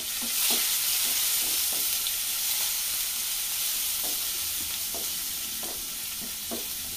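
Chopped aromatics and mustard seeds sizzling in hot oil in a nonstick frying pan as they are stirred with a wooden spatula. The sizzle is loudest about half a second in and then eases off, with light scrapes of the spatula on the pan now and then. They are being fried until their raw smell is gone.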